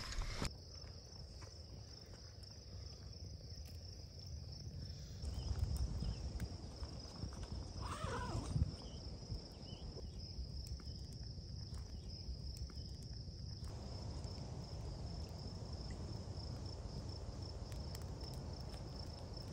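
Crickets trilling steadily in one continuous high tone, over a low rumble.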